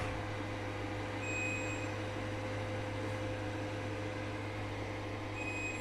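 Steady electrical hum with fan-like noise, and a faint high tone that comes briefly about a second in and again near the end.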